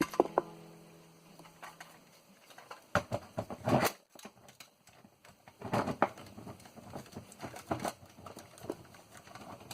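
Handling noise from a partly disassembled floppy disk drive: at the start a short ringing tone fades over about two seconds, then irregular clicks, taps and knocks of small metal and plastic parts being moved, loudest about three to four seconds in and again around six seconds.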